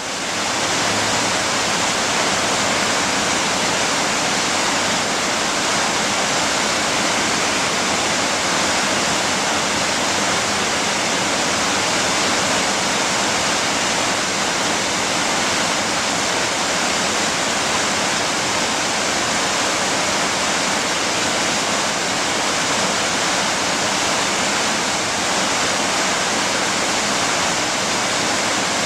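Steady rushing water, a dense, even roar of falling or fast-flowing water that fades in over about the first second and then holds constant.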